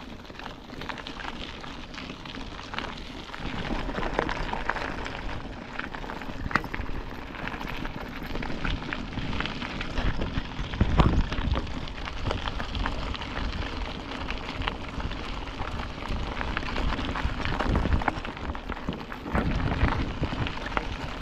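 Mountain-bike riding noise on a handlebar-mounted action camera: wind buffeting the microphone in gusts, over a steady crackle of tyres and small rattles on a rough road.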